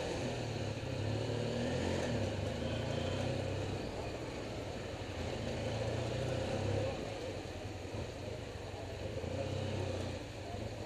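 Honda Africa Twin XRV750's V-twin engine running at low revs as the motorcycle crawls along a busy street, with the sound of other traffic around it.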